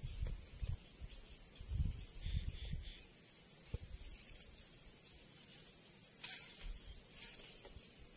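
Steady high-pitched hiss of insects in swamp vegetation, with a few soft low thumps in the first three seconds.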